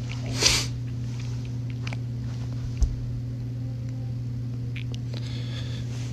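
A steady low hum in the room, with a short breathy hiss about half a second in and a brief soft thump near three seconds.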